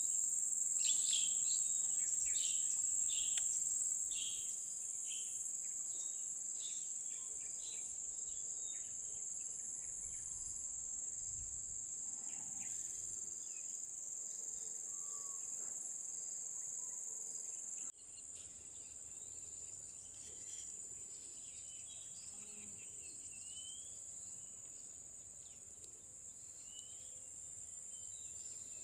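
Wetland ambience: a steady high-pitched drone of insects, with bird calls over it, a quick run of repeated calls in the first few seconds and scattered short whistles later. The sound changes abruptly about two-thirds of the way through.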